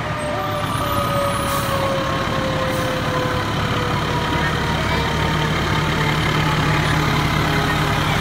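Fire trucks' diesel engines running as they drive slowly past, the low engine sound growing louder as a fire engine draws close in the second half. A thin whine slides slowly down in pitch over the first few seconds.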